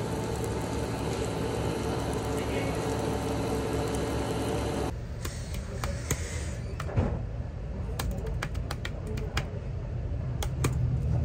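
Meat sizzling on a tabletop Korean barbecue grill in a noisy restaurant. About five seconds in this gives way to hard, fast typing on a computer keyboard: rapid clicks of the keys over a low room hum.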